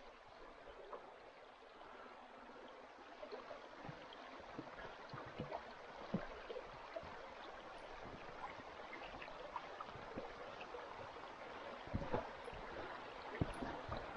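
Faint trickle of a small stream running over rocks, with scattered soft knocks and footsteps as someone walks across a log footbridge and onto the trail.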